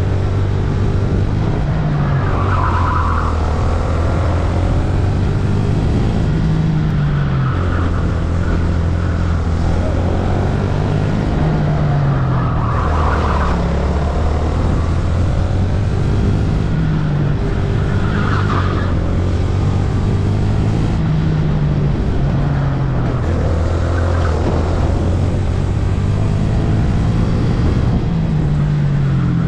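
VT250 kart's engine driven hard around a track, heard from on board: its note rises and drops again and again through the lap, over steady wind and tyre noise.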